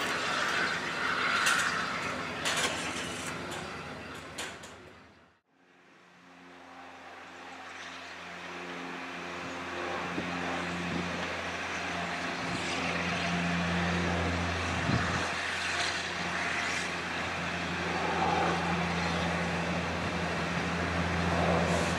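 A steam train running, with steam hiss and sharp rail clicks, fading out about five seconds in. After a short gap a steady low mechanical hum takes over and slowly grows louder as the train approaches tender-first.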